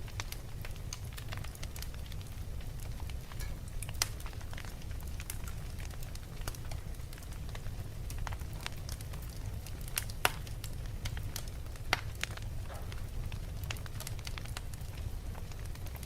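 Fire crackling with irregular sharp pops, a few louder snaps about 4, 10 and 12 seconds in, over a steady low rumble.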